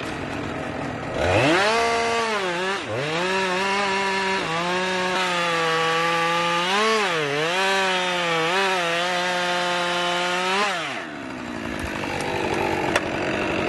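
A two-stroke chainsaw revs up and cuts through a log at full throttle. Its pitch holds steady but dips briefly several times as the chain bites and bogs in the wood, then falls away near the end as the throttle is released.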